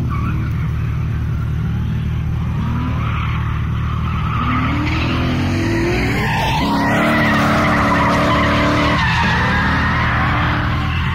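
Drift car's engine revving hard while its rear tyres squeal and skid as it slides sideways through a corner. The engine note climbs in short bursts, then holds high and loudest for a couple of seconds past the middle before dropping.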